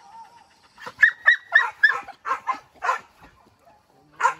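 Hunting dogs barking and yelping in a quick run of sharp, high barks, about four a second, then a pause and one more bark near the end.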